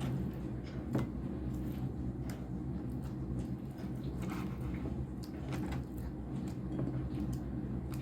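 Soft squishing and scattered light clicks of food being handled in a kitchen, at irregular times over a steady low hum.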